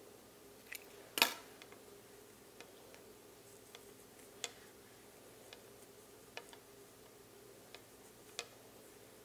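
Wooden knitting needles clicking lightly and irregularly as stitches are worked, with one sharper click about a second in, over a faint steady hum.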